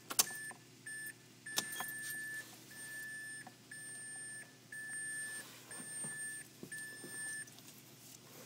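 Car dashboard warning chime beeping about once a second, its first beeps short and the rest longer, stopping near the end, with a few sharp clicks near the start.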